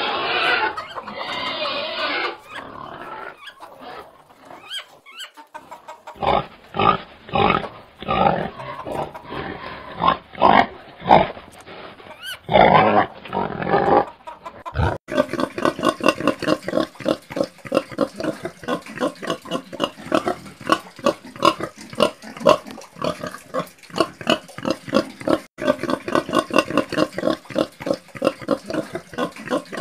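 Domestic pigs grunting: short, separate grunts with pauses through the first half. Then, after an abrupt change about halfway, a pig rooting in mud grunts in a fast, steady run of a few grunts a second.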